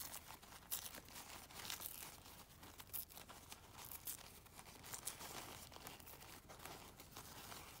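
Faint rustling and crinkling of a thin paper napkin as fingers pick at its corner to peel the plies apart, with irregular short crackles.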